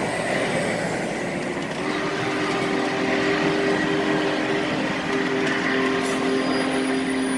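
Union Pacific streamlined passenger cars rolling past on the rails, a steady rushing rumble of wheels on track. A steady hum joins about two seconds in.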